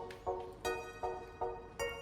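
Background music: a quick run of plucked notes, about two and a half a second.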